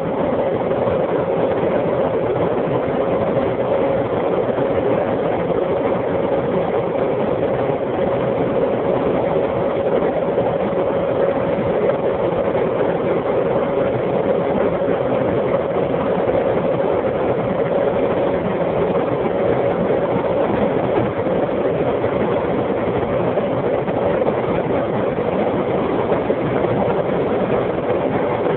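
Jaguar X-Type 2.5 V6 heard from inside the cabin while holding about 220–230 km/h near its top speed. There is a steady engine note over a constant rush of wind and road noise, with no change in pitch or level.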